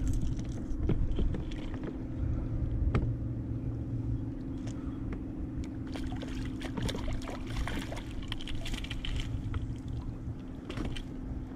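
Kayak on the water: water sloshing and many light clicks and knocks from the hull and gear over a steady low hum.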